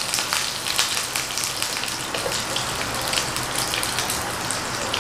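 Pork belly sizzling on a small electric grill plate in its own rendered fat: a steady hiss with frequent crackling pops.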